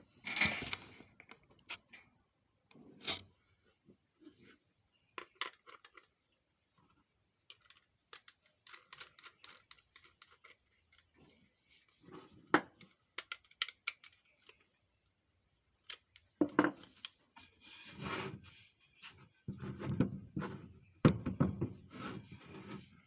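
Intermittent handling noises: scattered clicks, knocks, taps and rustling or rubbing, busier in the last few seconds. No power tool is running.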